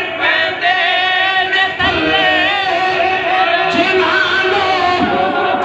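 A man singing lines of poetry in a melodic recitation, with long held, wavering notes, through a microphone.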